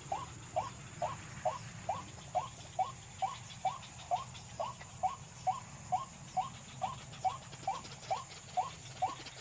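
White-breasted waterhen (ruak-ruak) calls: a short arched note repeated very evenly, about two times a second, in the way used to lure the birds.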